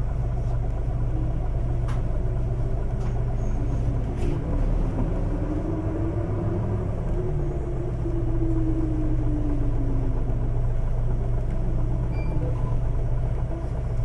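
Isuzu Erga QKG-LV234L3 city bus heard from inside the cabin with the windows open: its diesel engine runs steadily, then about four seconds in the bus pulls away, with a whine that rises in pitch and then falls away again.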